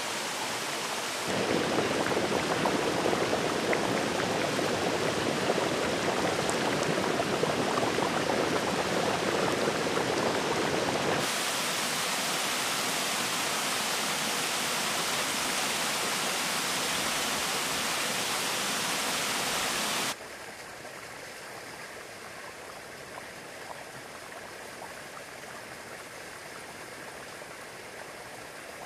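Running water of a thermal spring stream and a small waterfall, rushing over rocks. Its level jumps abruptly three times as the shots change: louder after about a second, a little softer around the middle, and much quieter in the last third.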